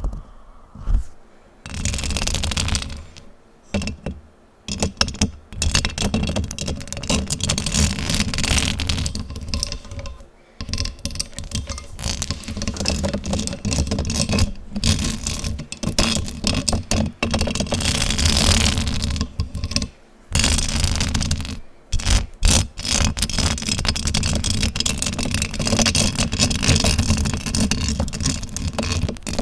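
Fast, aggressive scratching directly on a microphone, close and loud. It comes in long rasping runs broken by a few brief pauses.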